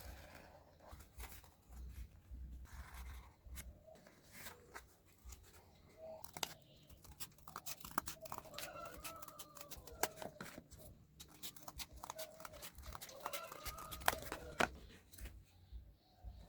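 Cardboard being cut and handled: a rapid string of sharp clicks, crackles and tearing, busiest in the second half, with short squeaky tones mixed in.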